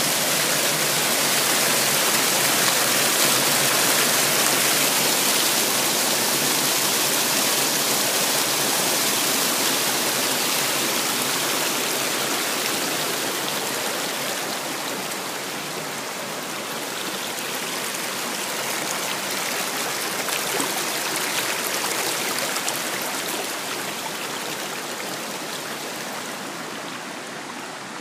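Creek water rushing over rocks in a small cascade, a steady hiss of white water that grows quieter through the second half.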